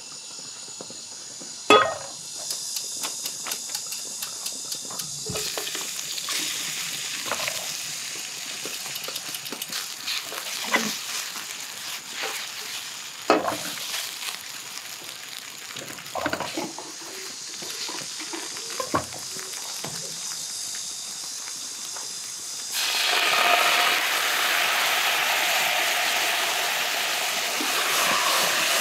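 Food frying in oil in a frying pan, with a steady sizzle and occasional sharp knocks of utensils against the pan, the loudest about two seconds in. About 23 seconds in the sizzle gets much louder as the strips in the pan are stirred.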